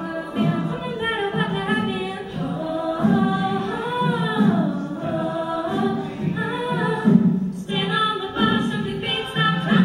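Mixed-voice a cappella group singing in close harmony with no instruments, several voice parts over a strong low bass line.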